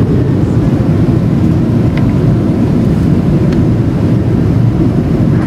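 Steady low rumble of a passenger airliner's cabin noise in flight: engine and airflow noise heard from a window seat over the wing.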